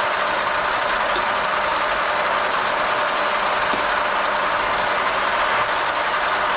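Machine tool running steadily while drilling a hole in a metal part, an even, unbroken machining noise with a faint steady high tone over it.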